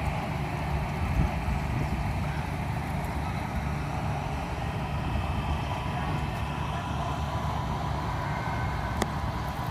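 Steady low outdoor rumble with no clear change, and a single sharp click about nine seconds in.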